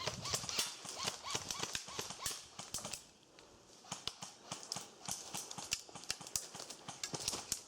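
Quick footsteps crunching through dry leaves and twigs on the forest floor, an irregular run of crackling steps with a short pause about three seconds in.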